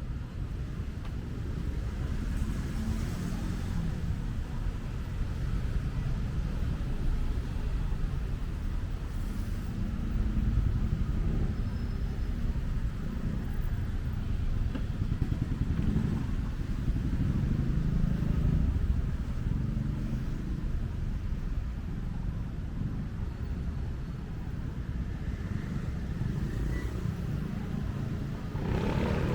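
City street traffic passing: a steady low rumble that swells and fades as vehicles go by.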